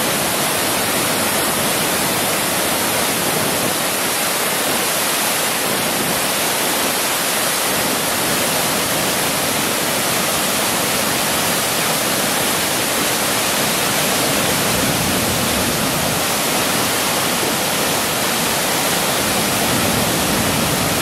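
Floodwater pouring over the crest of a concrete dam and crashing into the river below, a loud, steady, unbroken rush of white water from a river in extreme flood.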